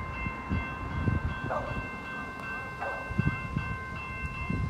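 Railway level-crossing warning bell ringing steadily with the boom gates down, over an uneven low rumble.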